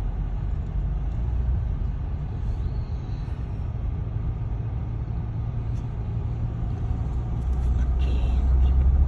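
Steady low rumble of a car driving, heard from inside the cabin, getting a little louder near the end.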